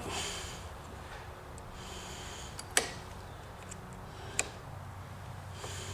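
Two light, sharp metal clicks about a second and a half apart, from a small screwdriver and circlip being worked at a chainsaw's clutch.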